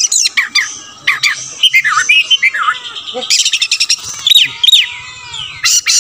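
Oriental magpie-robin singing: a fast, varied run of loud whistled notes, many sweeping down in pitch, mixed with sharp clicking notes.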